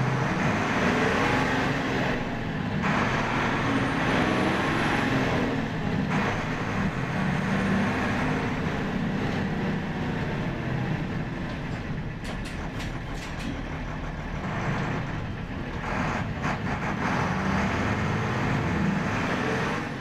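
Mercedes-Benz OF 1721 bus's six-cylinder turbodiesel engine running under way, its note rising and falling repeatedly with the throttle and gear changes. There are a few sharp clicks in the middle.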